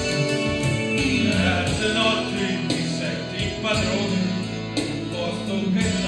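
Live amplified music: a backing track with a steady beat, and a man who starts singing into a handheld microphone about a second in.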